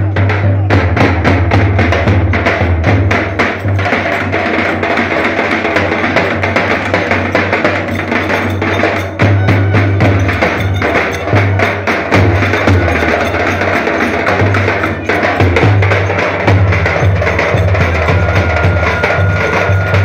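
Live Turkish folk dance music: a davul bass drum beating steadily under dense, rapid clicking percussion.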